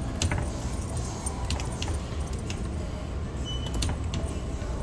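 Scattered light clicks and jingles, a few a second, over a steady low background rumble, with a brief thin high tone a little past the middle.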